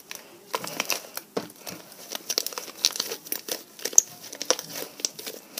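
Orange shaving-foam slime with toilet paper worked into it, kneaded and stretched by hand, giving irregular small clicks and crackles.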